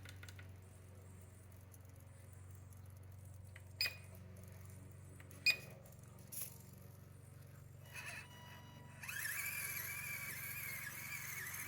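A few light clicks, then from about nine seconds in the steady whine of a 1/24-scale micro RC crawler's small electric motor and gears as it drives a turn test.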